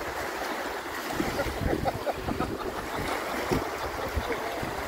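Small waves washing on a sandy beach, with wind buffeting the microphone in uneven low gusts.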